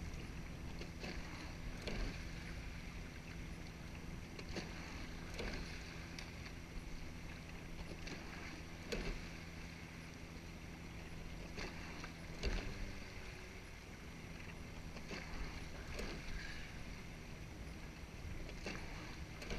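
Eight-oared rowing shell underway at a low stroke rate: water rushes past the hull, and oars knock in their oarlocks at the catch and release, a pair of knocks about every three seconds. A faint steady hum runs underneath.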